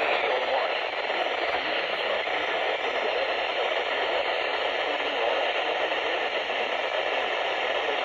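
Steady hiss of radio static from a receiver picking up a weak signal.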